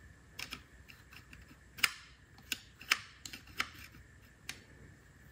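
Scattered sharp clicks and taps of hard parts being handled during reassembly of a reciprocating saw, about a dozen at uneven intervals, the loudest two about two and three seconds in.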